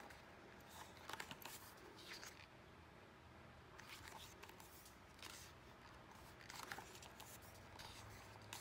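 Faint rustling and brushing of photo-book pages being turned by hand, a few soft paper sounds spread through an otherwise near-silent stretch.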